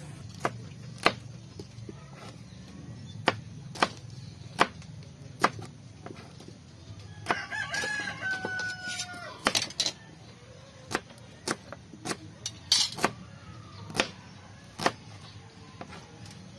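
Kitchen knife slicing shallots and clicking down onto a plastic cutting board, a sharp tap every second or so. About seven seconds in, a rooster crows once for about two seconds.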